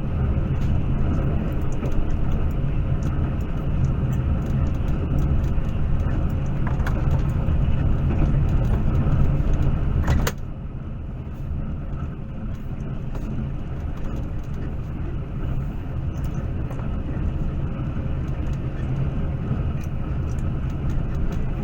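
Moving train running on the track: a steady low rumble with many small rattles and clicks. About ten seconds in, after a sharp click, it suddenly drops a little in level and carries on steadily.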